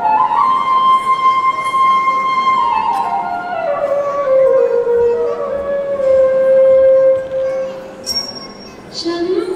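Recorded Indian song music used as dance accompaniment: a single melody line holds a long high note, then slides down step by step to a lower note and holds it for a few seconds. A new, lower phrase begins near the end.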